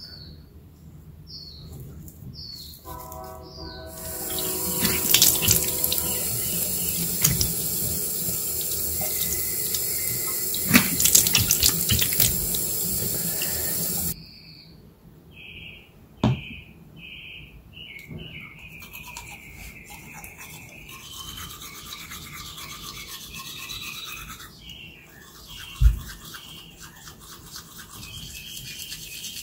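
Tap water running into a sink for about ten seconds, then cutting off suddenly. Softer repeated high chirping notes come before and after it, and there is a single knock near the end.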